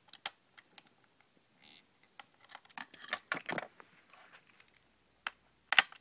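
Irregular small clicks and taps of a screwdriver working the hard drive's mounting screws in a laptop's plastic base, with a couple of sharper clicks near the end.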